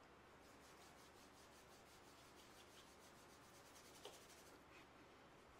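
Near silence: faint room tone from an open microphone, with light rustling and one soft click about four seconds in.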